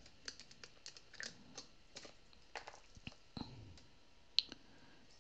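Light, irregular clicks and taps of a wooden skewer stirring against a hard plastic resin mould and of a plastic squeeze bottle being handled over it, with a duller knock about three and a half seconds in and one sharper click a little after four seconds in.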